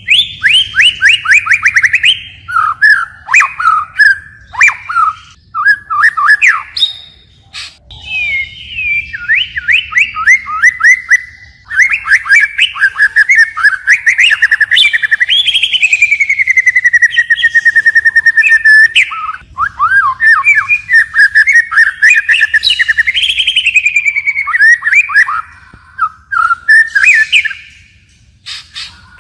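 White-rumped shama singing a long, varied song of rapid whistled phrases, trills and sweeping notes, switching from one phrase to the next almost without a break.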